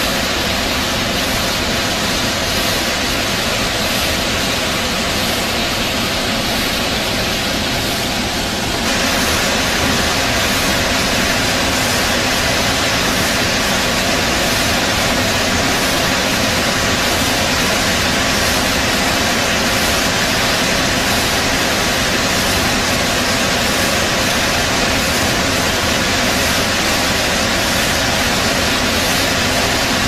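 Gokak Falls on the Ghataprabha River: a steady rush of heavy water pouring over the cliff. It grows a little louder and brighter about nine seconds in.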